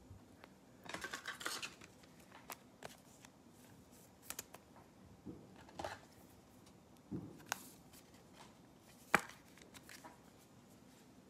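Faint handling of glossy trading cards: cards slid and flipped against one another in the hand, then scattered light clicks and taps, the sharpest about nine seconds in.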